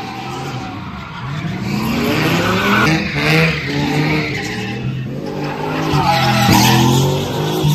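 A car engine revving hard in long rising and falling sweeps as the car spins donuts on a dirt lot, with tyres skidding.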